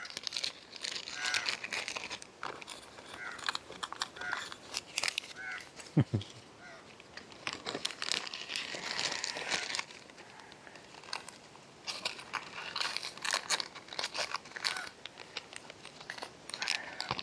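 Plastic and foil sachets crinkling and rustling as they are handled and packed back into a ration-pack bag, with a few short bird chirps here and there. One brief low bump about six seconds in.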